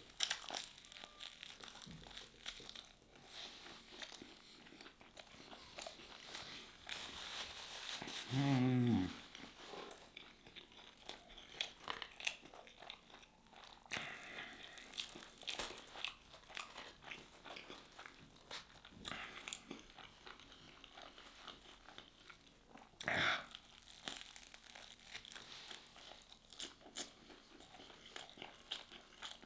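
Close-up chewing and crunching of crispy food, many small crackly bites in a row, with a short hummed "mmm" about eight seconds in and another brief vocal sound near 23 seconds.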